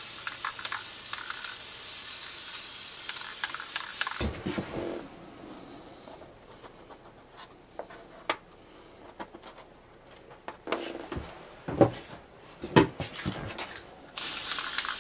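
Aerosol can of high-tack gasket sealant spraying in a steady hiss for about four seconds, then paper gaskets being handled and turned over on cardboard with light rustles and a few sharp knocks, then the spray hissing again near the end.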